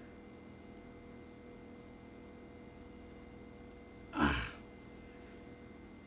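Quiet room tone with a faint steady electrical hum. About four seconds in, one short breathy whoosh.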